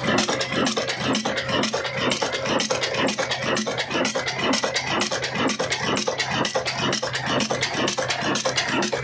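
Old Ruston diesel engine running steadily, its exposed valve gear and cam roller followers giving a rapid, even mechanical clatter over a constant low hum.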